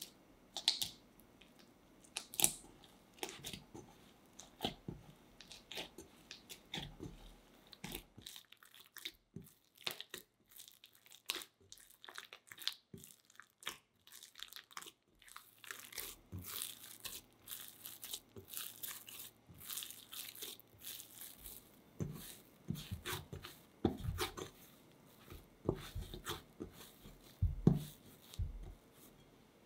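Hands kneading soft unsalted butter into sticky milk-bread dough in a glass bowl, making irregular wet squelching and tearing sounds as the dough is pulled and pressed. Near the end come heavier strokes with dull thumps.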